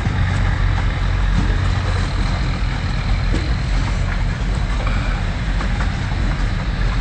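An engine running steadily: a constant low hum and rumble that stays loud and even throughout.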